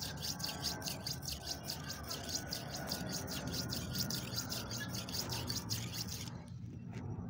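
A steel knife blade being stroked back and forth on a wet red sharpening stone: a rhythmic scraping of several strokes a second that cuts off abruptly about six seconds in.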